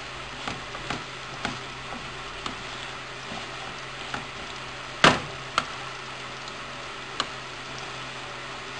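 Rice grains toasting in hot oil in a frying pan, sizzling steadily while a wooden spatula stirs them and knocks against the pan now and then, loudest about five seconds in. This is the stage where the raw rice is fried in oil before the water is added.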